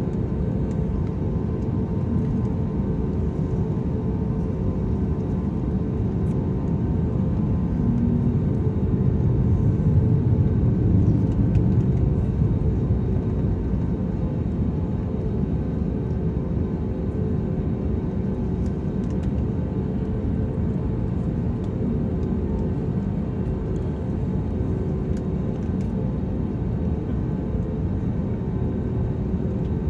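Cabin noise of an Airbus A320neo taxiing: a steady low rumble of the engines and the rolling airframe with a constant hum over it, swelling slightly about ten seconds in.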